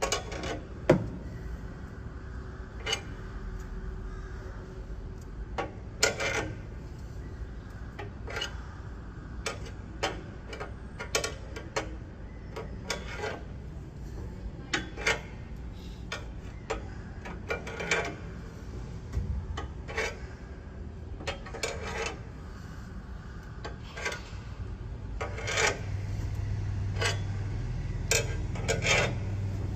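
Irregular metal clicks and scrapes, roughly one every second or so, from hand tools being worked at a car wheel during a tyre change. A low hum comes up near the end.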